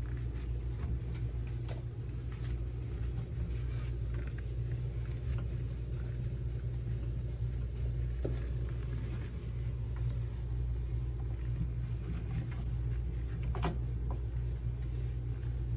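Microfiber towel wiping the inside of a microwave: faint rubbing and a few light knocks over a steady low hum.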